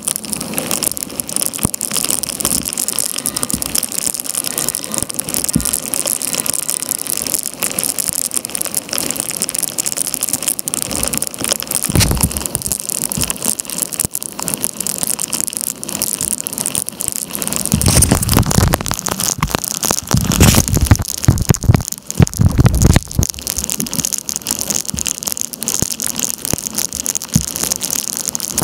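Torrential rain pelting the river surface and the kayak, a dense steady hiss full of close drops ticking on the camera. About twelve seconds in, and again several times in the second half, louder low rumbles swell up and die away.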